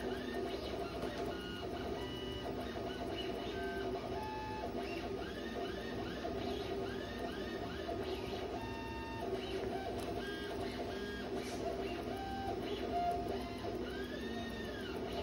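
A machine running steadily: a mechanical hum with many short whines that rise and fall again, over and over, the same throughout.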